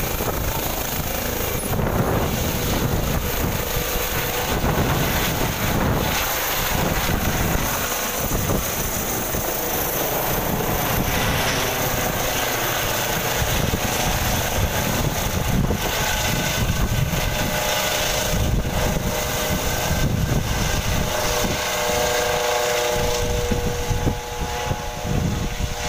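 Helicopter lifting off and climbing away overhead: steady, loud rotor and engine noise with a gusty low rumble, and a whine that comes in over the second half.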